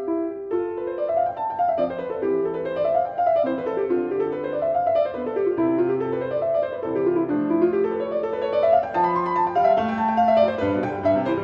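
Background music: quick runs of notes that climb and fall again and again over lower held notes.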